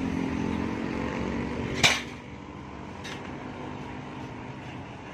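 Delivery truck's engine idling with a low, steady hum, cut short by one sharp knock about two seconds in, after which only a faint background hum and a light click remain.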